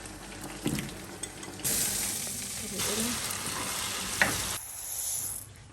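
Food sizzling as it fries in a pan while being stirred, the hiss stepping up and changing sharply a few times, with light knocks and one sharp clink a little after four seconds.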